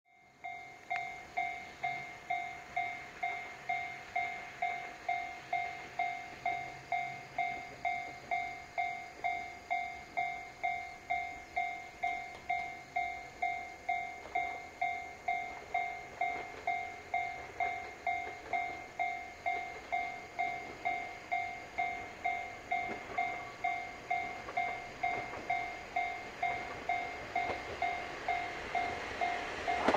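Japanese level crossing alarm ringing its steady 'kan-kan' tone, just under two strokes a second, while a KiHa 58 diesel railcar approaches; the train's engine and wheel noise grows louder toward the end.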